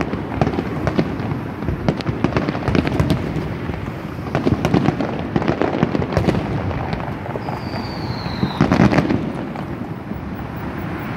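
Aerial fireworks display: a dense, irregular run of bangs and crackles as shells burst. A high falling whistle comes about seven seconds in, then a loud cluster of bangs.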